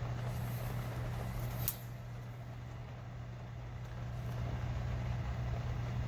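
Steady low hum, with a single sharp click a little under two seconds in.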